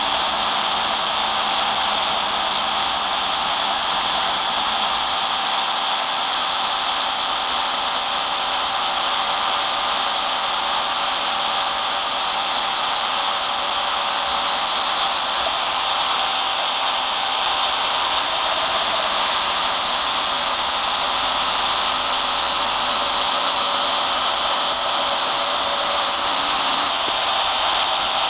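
Vertical metal-cutting bandsaw running and sawing a knife blank out of an old steel file: a steady high whine over a hiss of the blade cutting through the steel.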